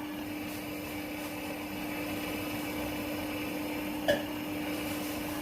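Electrolux washing machine filling with water at the start of a wash cycle: a steady hum with water rushing in.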